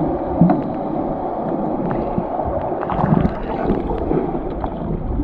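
Muffled underwater noise picked up by a submerged camera: water churning and bubbling around kicking swimmers, with scattered small clicks and knocks.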